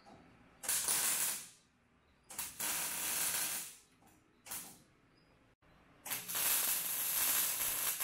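MIG welder arc crackling and hissing in four bursts: two of a second or so, a brief one, and a longer run of about three seconds near the end. These are test welds on a piece of square steel tubing, laid to check freshly adjusted welder settings.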